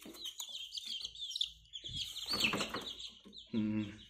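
Young incubator-hatched native chicks peeping continuously, many short falling chirps in quick succession, with a burst of rustling about two seconds in.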